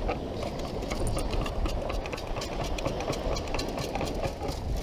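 Sand being shaken through a perforated metal CKG beach sand scoop: a steady fast rattle and hiss of sand and scoop.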